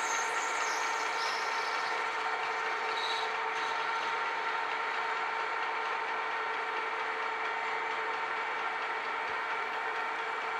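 Metal lathe running at a steady speed, its gearing giving a steady whine of several pitches, while a cutting tool faces the end of a round steel shaft.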